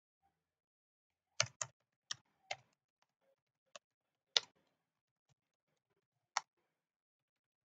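Slow, uneven typing on a computer keyboard: single sharp key clicks with gaps of up to two seconds between them.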